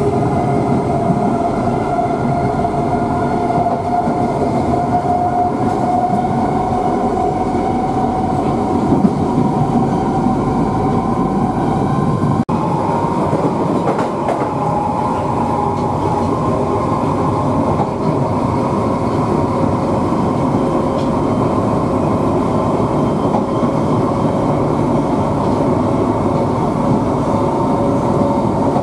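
London Underground 1973 Stock train on the Piccadilly line running at speed, heard from inside the carriage: a steady rumble of wheels on rail with a motor whine that rises slowly in pitch over the first dozen seconds. About twelve seconds in the sound briefly drops out.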